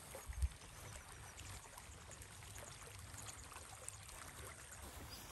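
Faint, steady open-air hiss with no speech, and a brief low thump about half a second in.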